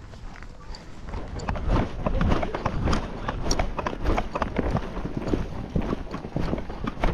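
Horse's hoofbeats on sand arena footing, heard close from the saddle, with an irregular run of dull knocks that grows louder from about two seconds in as the horse moves on.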